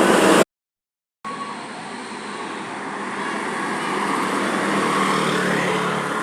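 A bus driving past on the road: engine and tyre noise growing louder to a peak about five seconds in, then easing off. The sound drops out to silence for under a second near the start.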